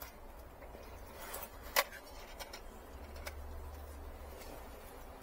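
Faint rustling and scraping of potting soil and a plastic nursery pot as gloved hands ease a small potted citrus tree loose, with scattered light clicks and one sharp click a little under two seconds in.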